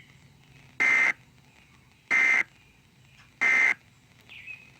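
Emergency Alert System end-of-message data tones: three short, identical bursts of screeching digital modem tone, evenly spaced about a second and a quarter apart, marking the end of the warning broadcast.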